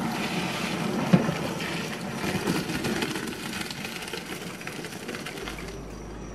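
Pasta water poured from a steel pot through a plastic colander into a stainless steel sink, splashing and drumming on the metal, with a sharp knock about a second in. The flow tails off as the pasta slides into the colander and fades out near the end.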